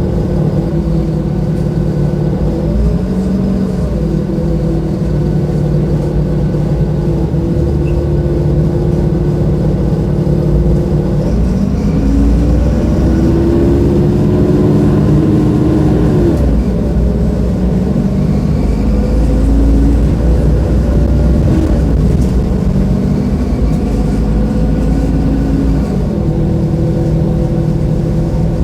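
Mercedes-Benz OM-926LA six-cylinder diesel engine of an O-500U city bus running under way. Its pitch holds steady, climbs for several seconds about halfway through, then drops sharply, and rises and falls again a little later.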